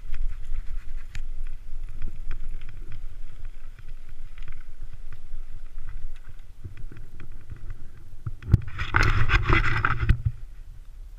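Mountain bike rolling over a leaf-covered gravel trail, heard through a handlebar-mounted action camera: a low rumble of tyres and wind on the camera, with frequent small rattles and clicks. About nine seconds in there is a louder rushing burst lasting a second or two.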